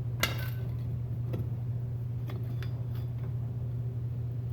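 Light metallic clicks and clinks of a brake spring tool working drum-brake return springs off the shoes: a sharp ringing clink just after the start, a few lighter ticks, and another sharp clink at the end, over a steady low hum.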